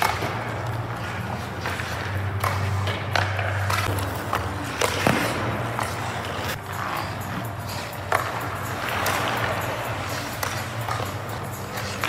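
Hockey skate blades scraping and carving on rink ice, with several sharp clicks of pucks striking sticks and goalie pads, over a steady low hum.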